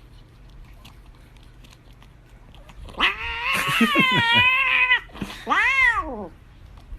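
A cat yowling: one long, wavering call about three seconds in, then a shorter call that rises and falls in pitch.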